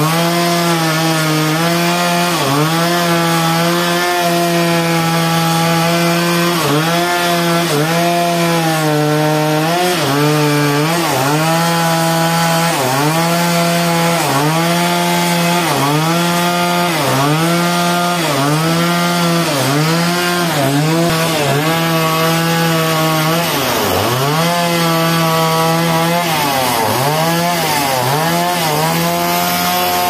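Two-stroke chainsaw at full throttle cutting through a large log. The engine pitch dips and recovers about once a second as the chain loads up in the wood, with one deeper drop a little past three-quarters of the way through.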